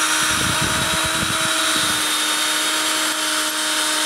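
Cordless drill running at a steady speed, its bit boring through a Brazilian cherry hardwood handle scale through the holes in a steel knife tang. Some low rumbling comes during the first two seconds.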